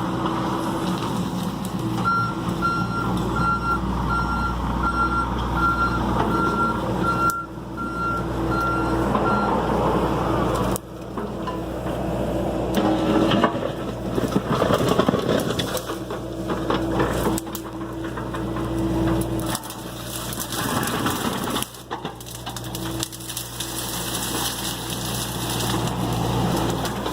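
John Deere excavator's diesel engine running under working load, its loudness rising and falling. For several seconds early on, a travel alarm beeps about once a second.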